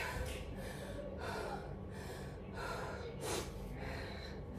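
A woman breathing hard in quick, repeated breaths, out of breath from exercise.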